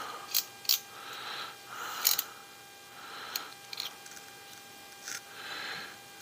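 Folding knife blade scraping and clicking against a small geared part from an RC crawler's rear axle as grease is spread on it. There are a handful of sharp clicks and short bouts of soft scraping.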